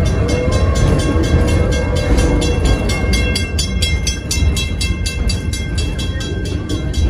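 Steam locomotive running with a rapid, even beat over a steady low rumble of the moving train.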